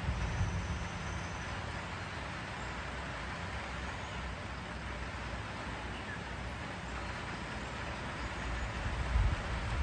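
Steady outdoor ambience: an even hiss over a low rumble that swells briefly about nine seconds in.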